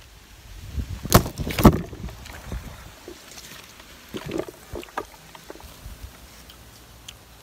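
A person chewing crunchy marian plums close to the microphone, with two loud sharp cracks a little after a second in and scattered smaller clicks later.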